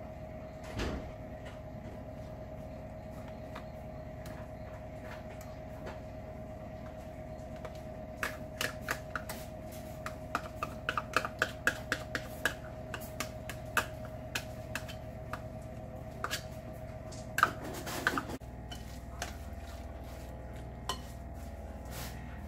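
A metal spoon scraping and tapping against a green measuring cup and a glass mixing bowl as sour cream French onion dip is scooped into chicken and cheese, with a quick run of clinks in the middle and the loudest tap a little before the end. A steady hum runs underneath until then.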